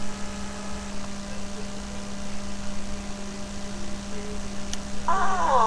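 Steady electrical hum, with a single click shortly before the end. Near the end, a short pitched sound slides down in pitch.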